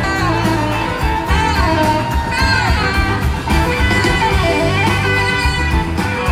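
Large live band playing amplified through a PA and heard from the audience, with guitars over a strong bass; a lead line slides up and down in pitch about a second in.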